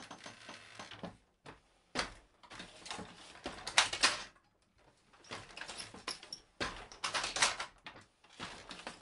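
Wooden low-warp hand loom being worked: clusters of wooden knocks and clatter from the beater, treadles and shuttle, each lasting about a second, with short pauses between them.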